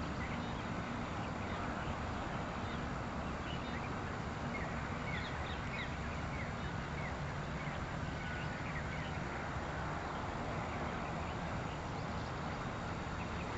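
Faint, short high bird chirps scattered over a steady rushing background noise.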